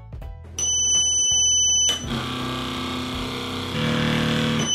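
Snap Circuits toy motor spinning a light-up fan blade, whirring steadily from about two seconds in until near the end. Before that, a high steady tone sounds for about a second and a half, over background music.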